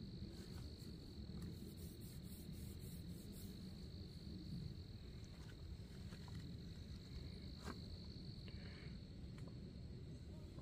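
Steady high-pitched insect trill, holding one constant pitch, over a low rumble, with a few faint clicks now and then.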